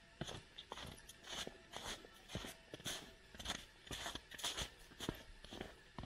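Footsteps crunching in snow at a steady walking pace, about two steps a second.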